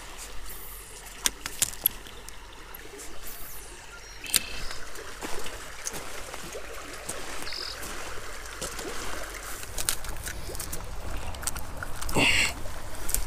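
Small stream flowing over a shallow riffle, a steady water hiss, with scattered clicks and handling noise. A loud fabric rustle comes near the end as clothing brushes the microphone.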